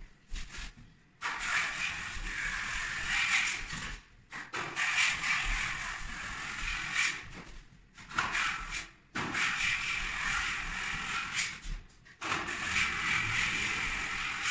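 Joint compound being spread on plasterboard ceiling joints with pole-mounted tools (a facade roller and a smoothing blade), giving a steady hiss. The hiss comes in four stretches of a few seconds each, and each starts and stops abruptly.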